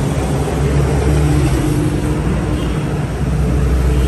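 A nearby motor vehicle engine running steadily, a low, even drone.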